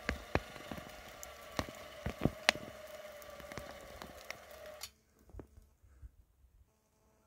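Electric 12,000 lb winch motor whining steadily under heavy load as it pulls a birch stump, its pitch sagging slightly. Sharp cracks and snaps come throughout as the roots give. The winch cuts off suddenly about five seconds in.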